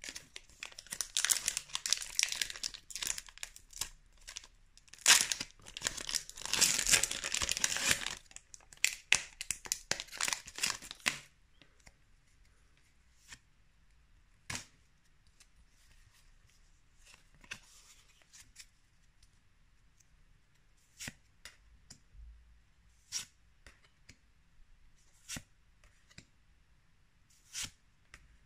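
Foil wrapper of a Pokémon TCG booster pack being torn open and crinkled for about the first eleven seconds. After that come short, soft snaps every second or two as the trading cards are slid and flicked one by one.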